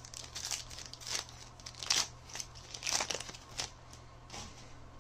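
Foil trading-card pack wrapper crinkling in the hands as it is opened, in a string of short crackles over the first three and a half seconds, then quieter handling of the cards.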